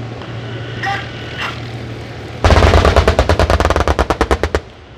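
A burst of rapid automatic gunfire from a live-fire military demonstration, about two seconds long, starting about halfway through with well over ten shots a second and thinning slightly toward its end. Before it, a steady low drone of vehicle engines.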